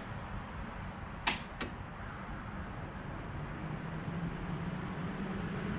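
Two sharp clicks, a third of a second apart, about a second and a half in, from a CCS fast-charging connector on a Tesla Model 3 as the charging session gets going. Underneath is a steady low hum that grows a little stronger later on.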